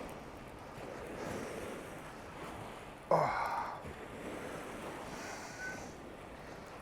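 Wind and surf noise on an open shore, with one short, loud, strained exhale about three seconds in, falling in pitch, as a heavy weed-snagged fishing line is hauled in.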